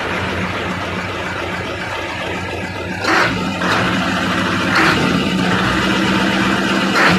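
Diesel engine running steadily at idle during a test run after its injection pump plungers were cleaned, to check whether the knocking remains. A few short noisy bursts sound over it from about three seconds in.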